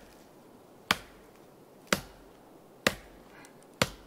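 Four sharp chopping strikes on dry wood, evenly spaced about one a second: a bush knife chopping at a dead branch.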